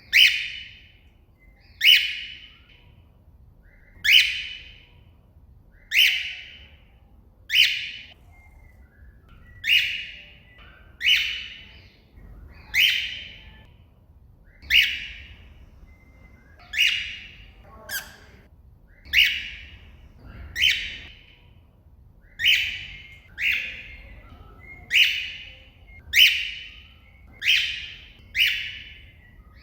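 Cockatiel giving its loud contact call over and over, calling out to another bird. Each call is a short, shrill note that falls in pitch, repeated about every one and a half seconds.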